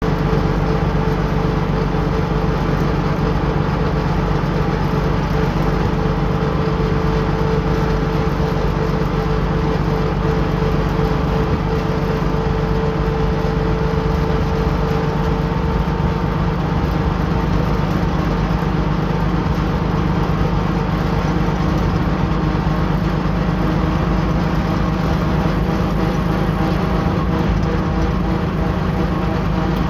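1938 Graham-Bradley tractor's six-cylinder engine running steadily as the tractor drives along at road speed, heard from the driver's seat.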